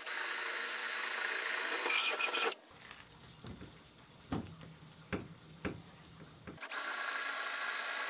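Cordless drill running at speed as it bores bolt holes through a headlight lens cover: one run of about two and a half seconds, a few light knocks while it is repositioned, then a second run that starts near the end.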